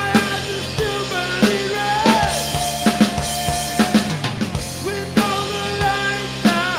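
Live rock music from a bass-and-drums duo: a drum kit beating out a driving rhythm with kick, snare and cymbals under an electric bass guitar, and a voice singing into the drummer's microphone.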